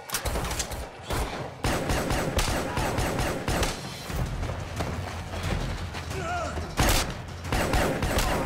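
Repeated gunshots in a close-quarters firefight, with the loudest shot about 7 seconds in and a low rumble underneath.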